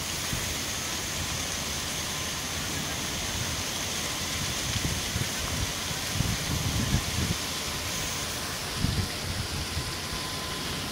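Fire hose spraying a steady jet of water, a continuous rain-like hiss, with low rumbles now and then.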